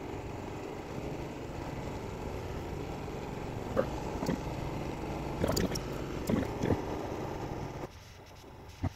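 Barthel petrol camping stove burner running with a steady hiss while its valve key clicks metallically several times. About eight seconds in the burner noise drops off suddenly as the flame turns lazy and yellow, which the owner puts down to the benzine in the tank running out.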